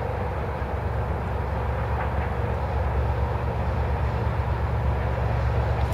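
Approaching BNSF diesel freight locomotives, a low steady rumble that grows slowly louder as the train nears.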